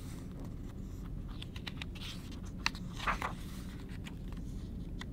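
Paper page of a picture book being turned by hand: a few light taps and soft rustles of paper, with a brief swish about three seconds in, over a low steady hum.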